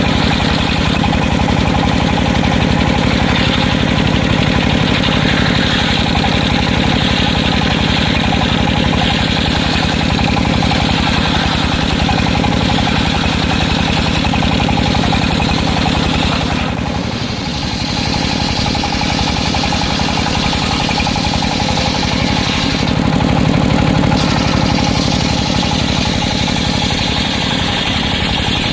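Engine of a circular sawmill running steadily with an even firing rhythm. It dips briefly about two-thirds of the way through and swells louder a few seconds later.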